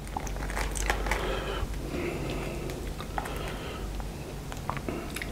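Wooden chopsticks picking up a breaded chicken nugget from a wooden board, giving a few faint clicks and taps, with soft breaths close to the microphone.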